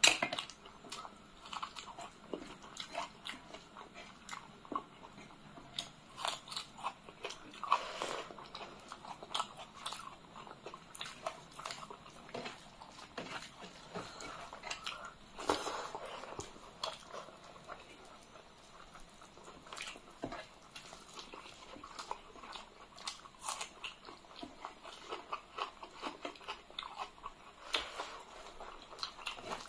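Close-up eating sounds of people eating rice and curry by hand: irregular chewing, crunchy bites and wet mouth clicks, with fingers squishing and mixing rice.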